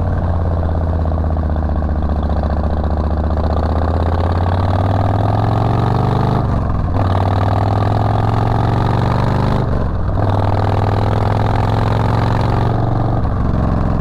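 Harley-Davidson Street Bob's V-twin engine running under way, its pitch slowly rising as the bike pulls. Two short breaks in the engine note, about six and a half and ten seconds in, are the rider shifting up a gear.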